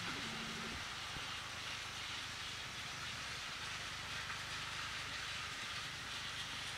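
Plarail battery-powered plastic toy train running along its plastic track: a steady motor whir and wheel rattle with no change in pace. A short stepped tone sounds right at the start.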